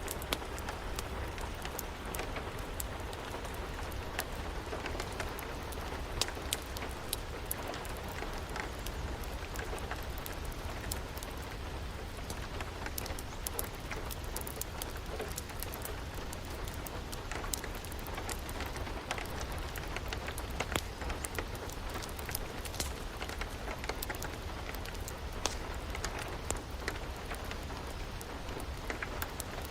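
Steady rain hiss with a low rumble beneath, mixed with scattered sharp crackles and pops from a wood fire.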